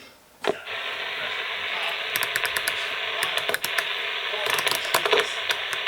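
Realistic TRC-57 SSB CB base station's speaker hissing with receiver static, which comes on with a click about half a second in. Sharp crackles and clicks break through the static, which the owner thinks may be dirty contacts.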